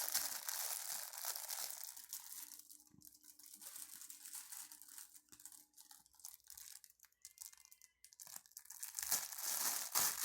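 Toy packaging being torn and crinkled open by hand: dense rustling and tearing for about the first two seconds, then scattered faint crackles and ticks, with rustling picking up again near the end.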